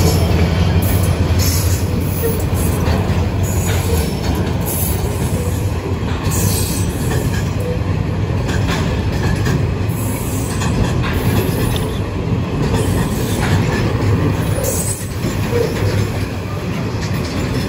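Container freight train passing close by. The diesel-electric locomotive's engine drone fades about four seconds in, then a long line of container flat wagons rolls past with a steady rumble of steel wheels on rail and scattered clanks.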